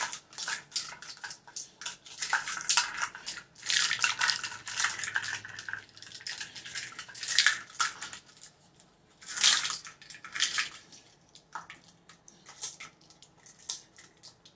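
A set of black plastic measuring cups clattering and clicking against each other as they are handled and sorted, with a louder brief scrape about nine and a half seconds in and only scattered clicks after.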